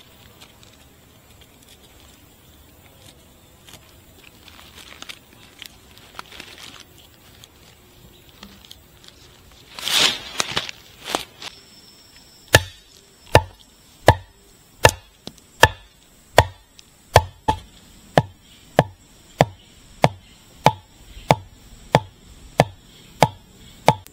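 Steady chopping into wood, about sixteen even strokes roughly one every three quarters of a second, starting about halfway through. Before them, quiet rustling and one loud brushing swish.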